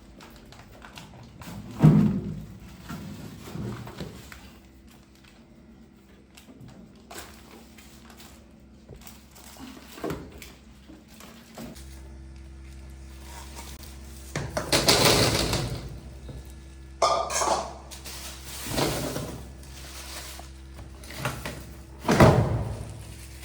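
Groceries being handled and put into a refrigerator: several dull thuds as items and vegetable packets are set down, with plastic bags rustling. A steady low hum comes in about halfway.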